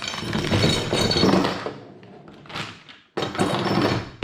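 Small metal hardware for a highway-peg kit (nuts, washers, clamp brackets) clinking and clattering as it is handled and tipped out of its packaging. There is a dense stretch of clatter for about two seconds, a short one, then another lasting about a second near the end.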